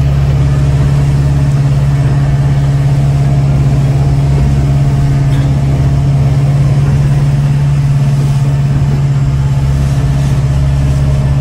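Motor boat's engine running at a steady speed, heard from inside the boat's cabin as a constant hum over a low rumble.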